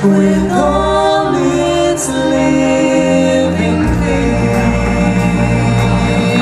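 Group of voices singing with musical accompaniment, several parts moving together, settling into one long held chord about four seconds in.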